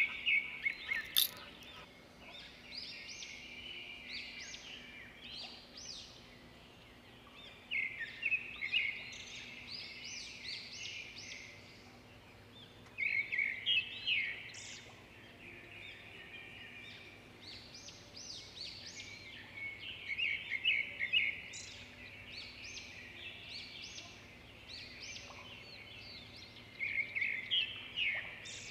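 Birds chirping and calling in repeated bursts of quick, high chirps, with a faint steady hum underneath.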